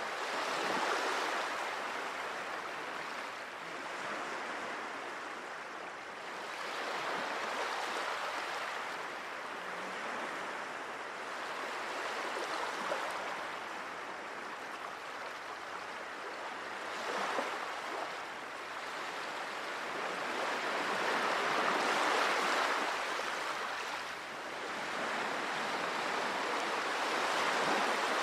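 Small sea waves washing in on a rocky, tidal shore: a continuous rushing of water that swells and eases every several seconds.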